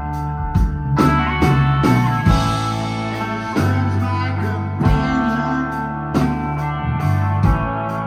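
Live rock band playing: electric guitars over bass, with a heavy drum hit roughly every second and a quarter.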